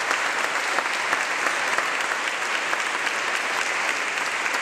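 Crowd of guests applauding steadily, many hands clapping together.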